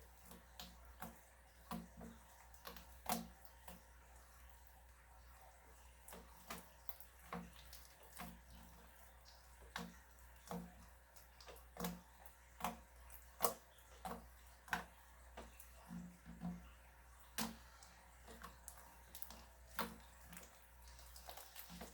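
Slime being squeezed and worked by hand, giving irregular soft wet pops and clicks, about one or two a second.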